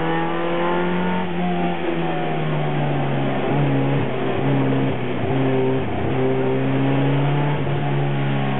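Škoda Rapid rally car's engine heard from inside the cabin, revving hard through a slalom run. It holds high revs, then drops off briefly several times around the middle before pulling up again.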